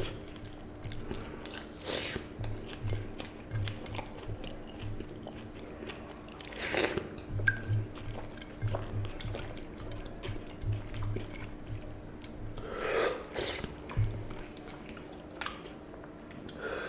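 Fingers squishing and mixing water-soaked rice (panta bhat) with a mashed bhorta on a plate, making irregular wet squelches and drips, with some chewing, over a faint steady hum.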